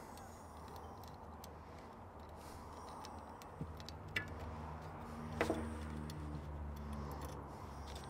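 A few faint metallic clicks and taps as small parts of a Rochester Quadrajet carburetor's choke assembly are handled with hand tools on the bench, over a low steady hum that starts a few seconds in.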